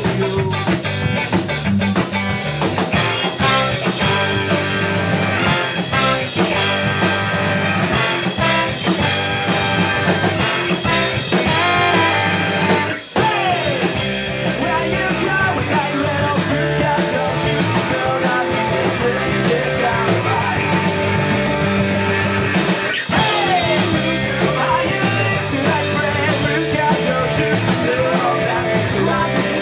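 Live ska-punk band playing a song: electric guitar and drum kit with singing, loud and steady. About 13 seconds in, the band stops for a split-second break and comes straight back in.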